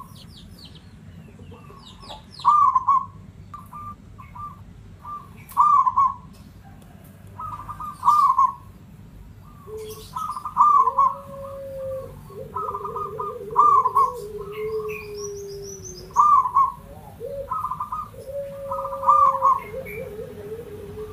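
Zebra doves (local Javanese perkutut) cooing: a loud rolling coo repeats every two seconds or so. About halfway through, a second, lower wavering call joins in, and small birds chirp faintly in the background.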